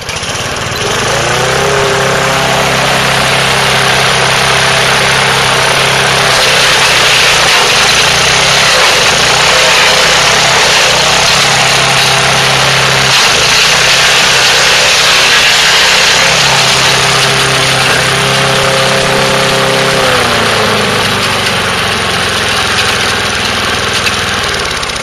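Craftsman gasoline push mower running hard while its blade grinds up a piece of wooden fence, a loud, dense chipping and grinding over the steady engine note. About twenty seconds in, the engine note drops.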